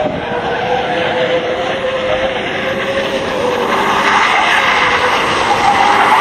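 MAN tractor unit's diesel engine running hard as the cab-only truck drifts, a steady engine drone at first. In the second half the engine and tyre noise grow louder as the sliding truck comes closer.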